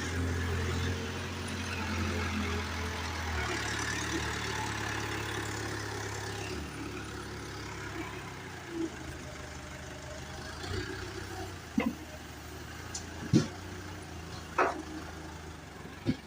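Backhoe loader's diesel engine running steadily at a low rumble, easing down a few seconds in, with several short sharp knocks in the second half.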